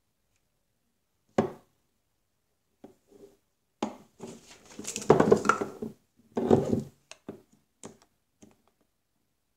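Handling noises on a work surface: a sharp knock about a second and a half in, a few light taps, then a couple of seconds of rustling and clattering and a scatter of small clicks as glitter is put onto a jar.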